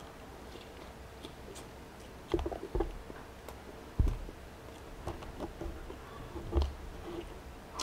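Close-miked chewing with the mouth closed: soft wet clicks and smacks, with a few louder dull knocks as a hand reaches to the table for more fries.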